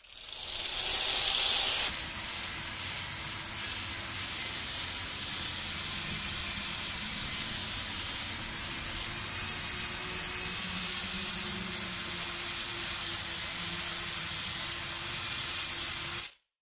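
Angle grinder with a 125-grit flap disc sanding rust off steel square tubing. It spins up with a short rising whine in the first second, then a steady grinding hiss runs over a constant motor hum, cutting off suddenly near the end.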